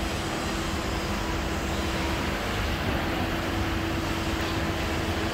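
Fifth-generation Peak Tram funicular car running, a steady rumble with a faint steady hum.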